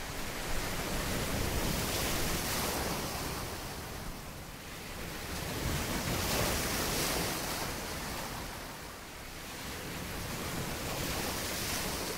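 Ocean surf: waves washing in and drawing back, the rush swelling and fading about every four to five seconds.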